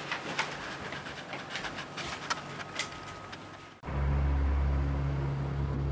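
Rustling and scattered clicks of people moving about a room. About four seconds in, these cut suddenly to a loud, steady low hum of a vehicle engine running.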